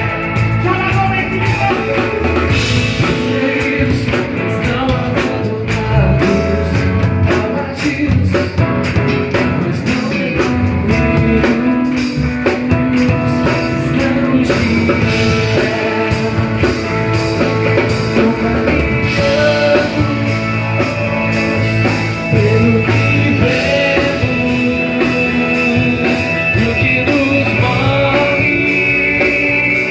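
Live worship band playing a rock-style song with drums and guitar, with singing.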